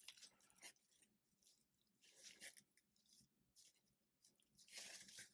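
Near silence with faint rustles and small clicks as a plastic action figure is handled and its arms are worked.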